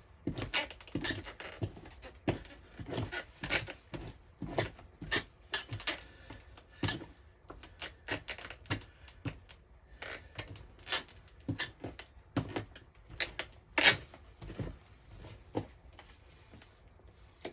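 Victorinox knife scraping fat and flesh off a beaver pelt in short, irregular strokes, roughly two a second, with one sharper stroke about three-quarters of the way through.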